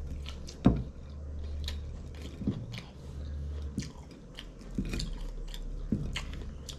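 Close-miked chewing of a mouthful of food, with wet mouth smacks and clicks scattered throughout; the sharpest click comes just under a second in. A low steady hum runs underneath.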